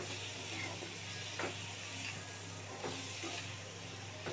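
Chopped capsicum and onion sizzling in hot oil in a kadhai, stirred with a metal spatula that scrapes the pan a few times.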